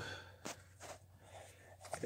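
A quiet pause: a few faint, brief rustles over a low steady hum.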